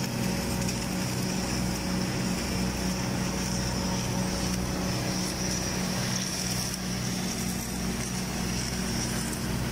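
Steady machinery hum with a high hiss over it, from the automatic girth welding equipment running.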